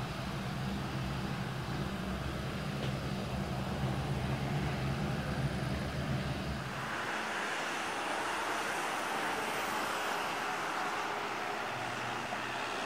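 Twin turboprop engines of a CN-235 transport aircraft running on a runway: a steady engine drone with a low hum. About six and a half seconds in, the low hum drops away and a higher rushing noise takes over.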